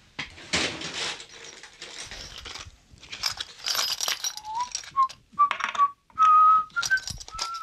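Small metal tools clinking and rattling as someone rummages through a box of tools. From about four and a half seconds in, a person whistles a wavering tune over further clicks and rattles.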